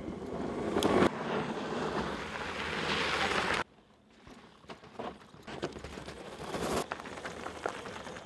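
Zero DSR electric dual-sport motorcycle riding a rocky dirt trail: tyres crunching over dirt and stones, building to a loud pass about a second in. After a sudden cut, scattered knocks and rattles follow as it rolls over rocky ground.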